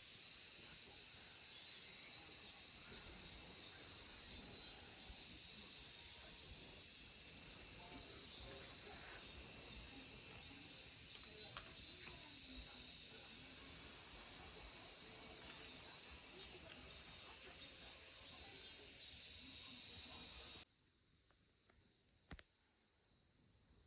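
Steady insect chorus, a dense high-pitched trill with no break, cutting off suddenly near the end, followed by a quieter stretch with a single click.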